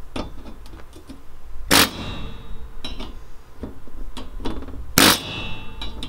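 A pneumatic air tool on a hose fires two short bursts against the school bus's sheet-metal side, about two and five seconds in. The panel rings briefly after each burst, with small metal clicks between them as the old badge's fasteners are worked loose.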